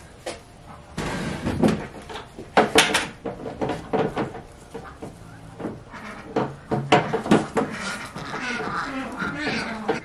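Plastic lid of a KILZ primer bucket being pried at with a hand tool: a string of irregular sharp knocks, clicks and snaps as the tool levers around the stubborn rim.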